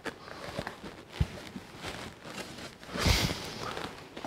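Plastic toy playset floor sections being handled: faint light clicks and rustling, a soft knock about a second in, and a brief scraping sound about three seconds in as a panel is laid on the table.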